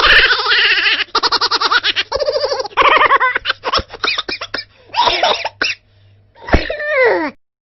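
Laughter sound effect: a string of short fits of laughing, broken by brief pauses, with the last laugh falling in pitch.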